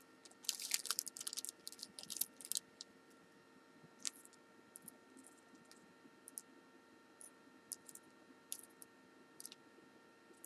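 Light metallic clicks and ticks of tiny lock pins and small tools being handled while key pins are set into a Kwikset-style pin-tumbler lock's plug: a quick flurry of clicks in the first few seconds, then scattered faint ticks.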